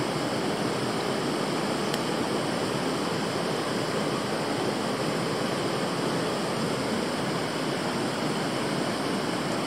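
Steady rush of a mountain river flowing over rocks, an even wash of water noise with no change in level.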